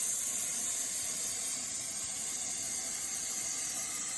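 LGK 100 plasma cutter cutting metal: a steady, loud hiss of the plasma arc and air jet, cutting cleanly.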